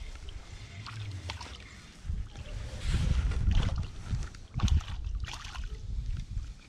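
Wind buffeting the microphone in an uneven low rumble that swells about halfway through, with scattered light clicks from a spinning rod and reel being handled and wound.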